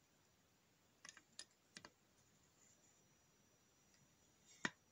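Faint small clicks and taps as a valve is slid into its guide and set down on its blued seat in a Daihatsu Charade GTti cylinder head: a few light ticks about a second in and one sharper click near the end.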